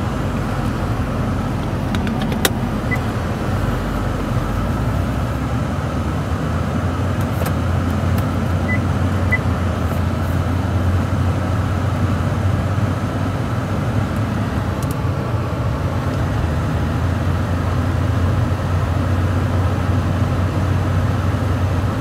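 Steady road and tyre noise heard inside the cabin of a 2010 Acura MDX driving on fresh winter tyres, with a low hum that grows stronger about eight seconds in and a brief click near the start. Nothing unusual stands out, consistent with the test drive going fine.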